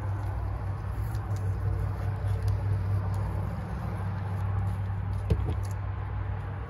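Aerosol cleaner spraying onto a chainsaw's clutch area to flush out grime: a steady spray hiss that stops a little before the end, with one sharp click shortly before it stops.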